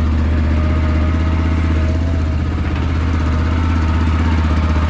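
Bultmotors Jumbo 700 ATV engine running steadily at idle with the variator cover off, a thin whistle from the CVT belt over it. The belt is worn and shedding dust, which the owner takes for a finished belt.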